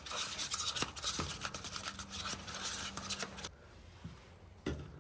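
A small stick stirring tinted paint in a paper cup, with rapid scraping strokes against the cup as the colour is mixed. The strokes stop about three and a half seconds in, and a single soft thump follows near the end.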